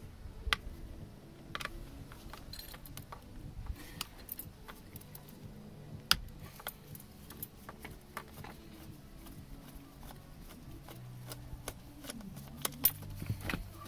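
Irregular sharp metallic clicks and taps from a screwdriver working at the back of a Vauxhall Astra G steering wheel to release the driver's airbag clips. The ignition keys jangle on their ring. The loudest clicks come about six seconds in and near the end.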